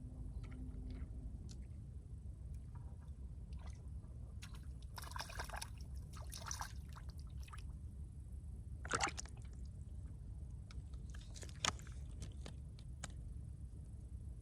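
Small splashing and sloshing of water over a steady low outdoor rumble, with two sharp clicks, one about nine seconds in and one near twelve.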